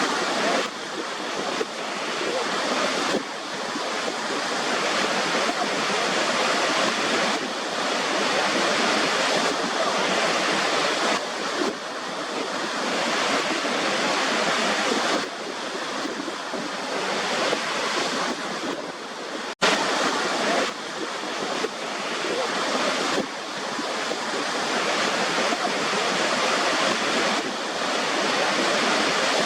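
Ocean surf washing in a steady rush that swells and eases every few seconds, with a sudden split-second dropout about twenty seconds in.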